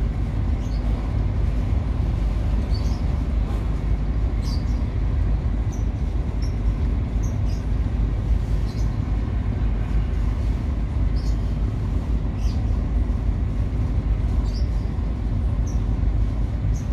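Steady low rumble of a car carrier ship's engines running, with faint short high-pitched chirps now and then.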